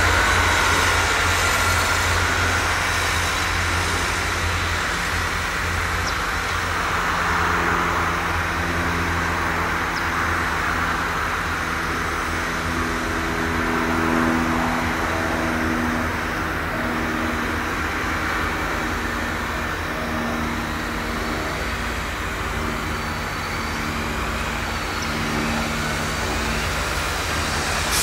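Diesel tractor engine running under load as a green John Deere tractor drives back and forth over a maize silage clamp, packing down the chopped maize. The engine note shifts up and down in pitch over a steady low rumble.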